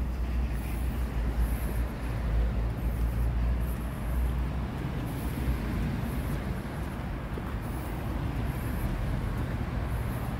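Steady low rumble of vehicle and road noise.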